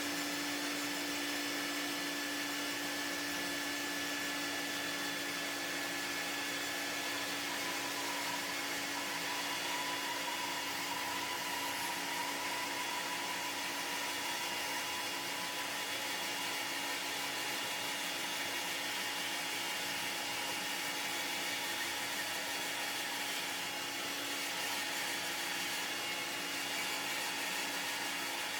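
An electric motor running at a constant speed with a steady whine and a rushing hiss, with no change in speed throughout.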